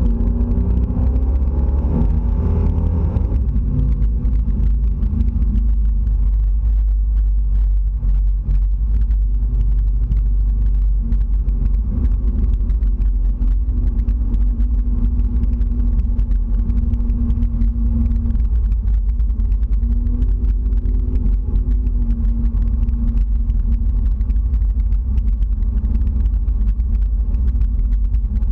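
Chevrolet El Camino driving, heard from inside the cab: engine and road noise with a heavy, constant low rumble. In the first few seconds the engine note rises as the car picks up speed, then it settles into a steady cruise.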